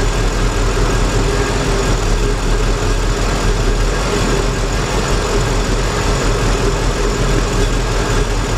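The 5.4-litre V8 of a 2004 Lincoln Navigator idling roughly with a misfire, heard close up with a steady whine over it. The number-two ignition coil is unplugged, and the idle changes only slightly, a sign that cylinder two is not the misfiring one.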